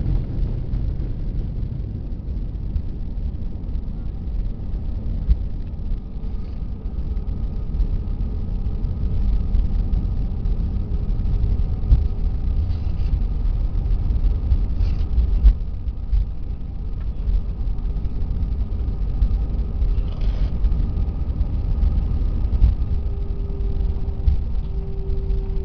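Cabin noise inside a jet airliner rolling on the ground after landing: a steady low rumble from the engines and the wheels on the runway, with a faint engine whine that becomes louder near the end.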